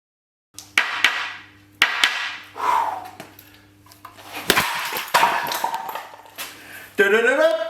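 A series of sharp knocks and clatters, each trailing off, about seven in all, over a steady low hum. Near the end a pitched sound rises and then holds.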